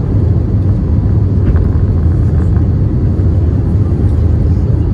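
Inside the cabin of an Airbus A320neo climbing after takeoff: the steady, loud low rumble of the engines and airflow, heard from a window seat by the wing.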